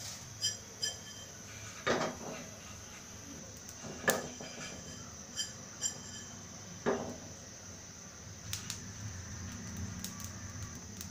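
Small nonstick frying pan being shaken on a gas burner to dry-roast cumin seeds: the metal pan knocks and clinks against the burner grate every second or two, with the seeds rattling across the pan, over a steady low hiss.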